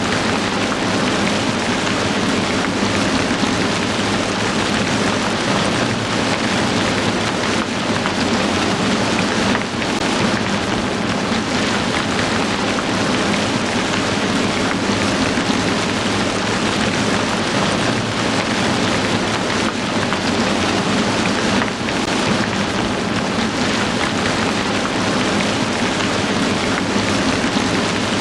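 Heavy rain falling steadily: a loud, dense, even hiss of rain on surfaces.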